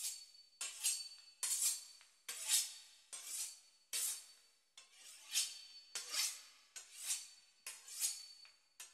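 Outro music made of sparse swishing percussion strokes, like a shaker or brushed hi-hat, a little more than one a second, each starting sharply and fading away.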